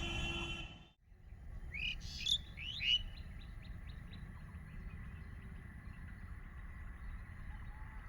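A bird calling: a few quick rising chirps, then a run of short repeated notes that fade away, over a faint steady high tone. Louder noise at the very start cuts off abruptly about a second in.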